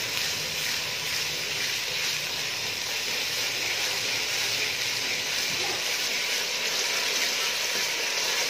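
Onions and ginger-onion paste frying in hot oil in an aluminium pot, giving a steady sizzle as they are stirred. The paste is being fried until its raw smell is gone.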